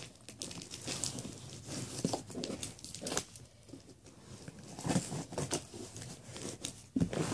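A cardboard shipping box being opened with scissors: irregular scraping, crinkling and tearing at the packing tape and cardboard, with small clicks and knocks.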